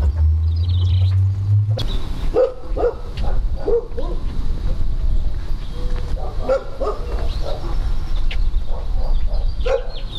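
Repeated short animal calls, in clusters from about two seconds in, with faint bird chirps and a low rumble.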